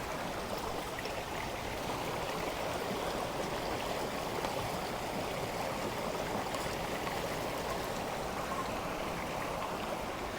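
Steady rushing of a river running high and heavy after a hurricane, an even, unbroken water noise.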